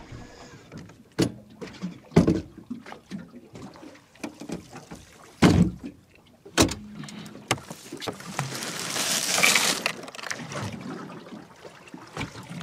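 Handling noises aboard a small fishing boat: a few sharp knocks spread through, and a loud rustling hiss lasting about a second and a half near the end.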